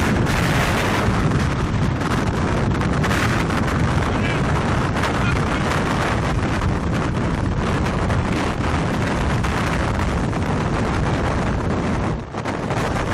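Strong wind buffeting the microphone: a loud, continuous low rumble with dense crackling gusts, easing briefly near the end.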